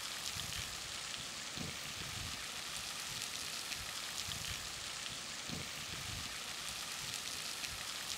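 Steady, even hiss of background noise with no distinct events, like rain or distant running water.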